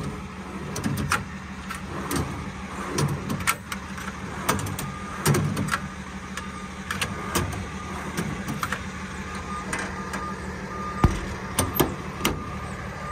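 Metal service-body drawers being pulled out and handled, with repeated clicks and clunks from their slides and latches. Near the end a compartment door's paddle latch clicks and clunks, the loudest knock of the run.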